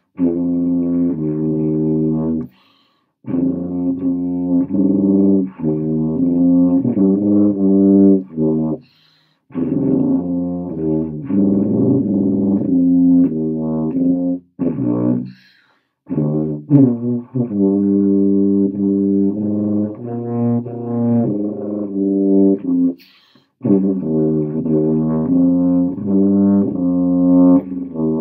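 Solo tuba playing a melodic passage of sustained, changing notes in several phrases, with short pauses between them.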